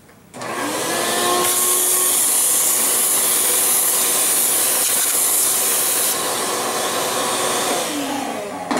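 Vacuum cleaner switched on, its motor rising to speed and running with a steady loud hiss as it sucks up the fine grit left by an abrasive track-cleaning pad, then switched off and winding down near the end.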